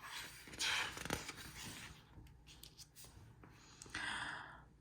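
Faint rustling of paper with a few soft clicks, as picture-book pages are handled and turned.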